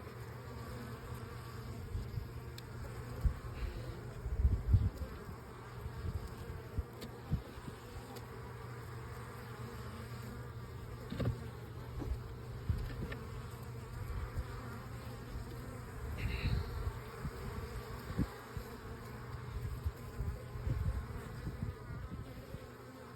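Honeybees buzzing steadily in a dense swarm at an open hive, with scattered knocks and scrapes as a wooden hive frame is worked loose and pulled up.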